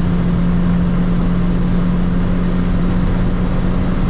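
Volvo 940's 2.3-litre naturally aspirated four-cylinder petrol engine pulling hard at high revs in fourth gear, heard from inside the cabin at motorway speed. It makes a steady drone over loud wind and tyre noise.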